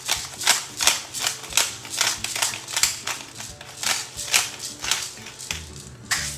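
Hand pepper mill grinding black peppercorns in a quick run of short twisting strokes, about two to three a second, with one last stroke near the end. Faint background music underneath.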